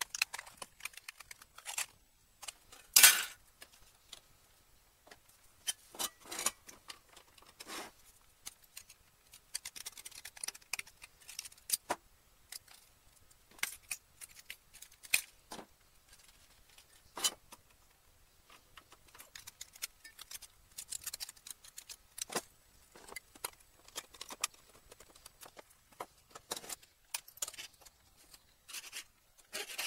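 Hand snips cutting thin stainless steel sheet, with the metal strips clinking and rustling as they are handled: irregular sharp snips and clicks, the loudest about three seconds in.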